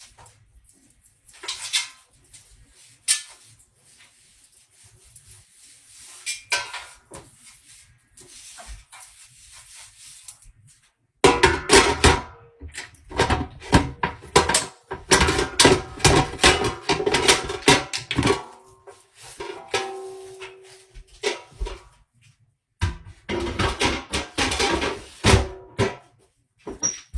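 A few faint knocks and clatter for about ten seconds, then music comes in loudly and plays on, breaking off for a moment near the end.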